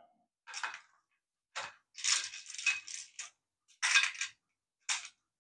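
Small plastic model-kit parts rattling and clattering as a hand rummages through them, in several short bursts with a busier stretch in the middle.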